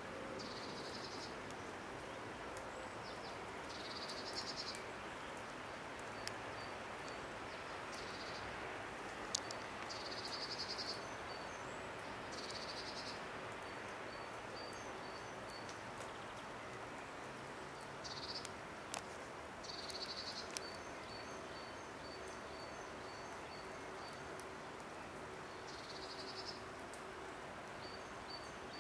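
Insects chirping in short, high, buzzy trills every few seconds, with rows of quick high ticks between them, over a steady hiss of outdoor background noise. There are a few faint sharp clicks.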